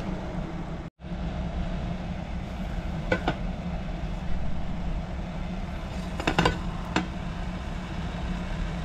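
A pot of sugar water simmering on the stove, heard as a steady low hum and rush, with a few light clicks and knocks near three seconds and between six and seven seconds as chopped herbs are put into the pot.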